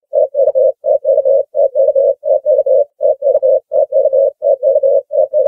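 Ring-necked dove cooing: a fast run of short, even coos in groups of three, about three groups every two seconds.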